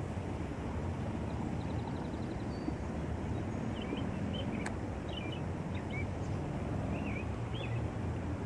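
Small birds chirping a few times over a steady low rumble of outdoor background noise, with one sharp click a little past the middle.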